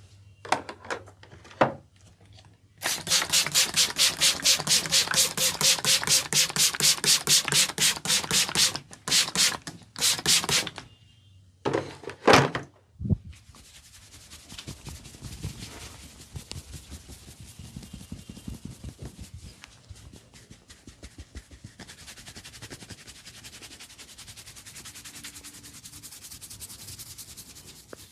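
Hands percussing on skin during a Thai massage: a fast, even run of loud slaps, about five a second, then a few single harder smacks. After that comes softer, quicker patting and rubbing.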